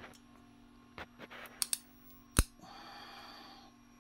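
Jumper-lead clips and wire ends clicking against a plastic motor-lead connector, several small clicks with one sharp loud click about two and a half seconds in, followed by about a second of steady buzzing hiss.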